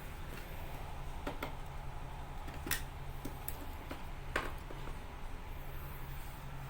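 A few sharp clicks and knocks of hard objects being handled and set down, about three of them spread over the few seconds, over a steady low hum.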